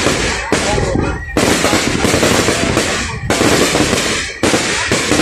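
Fireworks display at close range: a dense barrage of rocket launches, bursts and crackling. The sound breaks off sharply and starts again several times.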